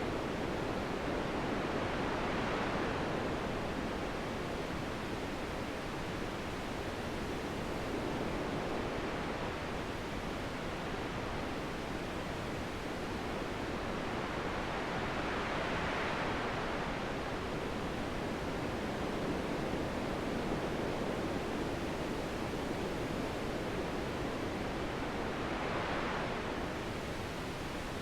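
Steady wind noise that swells and eases in slow gusts, three times.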